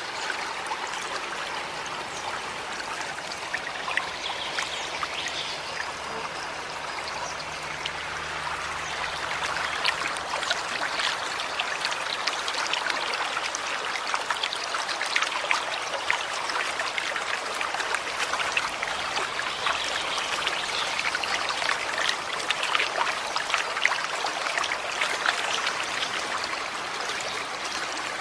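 Small forest stream running and trickling steadily over stones, growing a little louder about a third of the way in.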